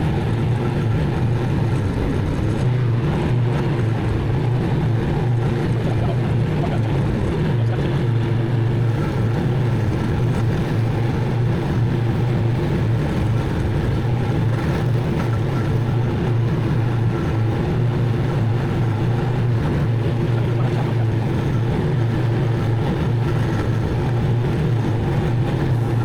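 Zero-turn mower engine running steadily at an even pitch and level, with no change in throttle.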